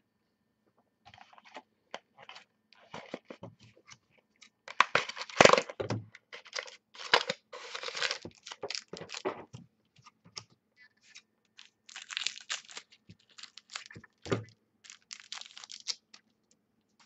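A trading-card pack's wrapper being torn open and crinkled by hand, in an irregular run of rips and crackles, loudest about five seconds in, followed by softer rustling as the cards are handled.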